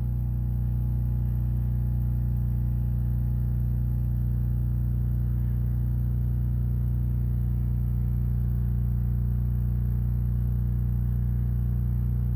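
Diesel generator running steadily with a deep, even hum, under heavy load from the inverter/charger charging the battery bank as the charge current climbs to about 68 amps.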